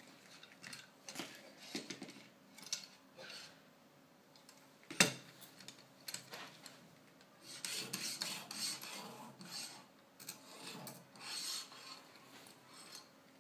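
Sharpening stone on a guided-rod knife sharpener scraping across the clamped steel blade of a kitchen knife in a series of strokes, with one sharp knock about five seconds in.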